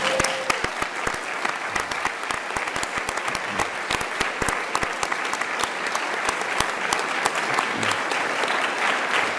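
Audience applauding steadily, a dense patter of many hands clapping at once in a large hall.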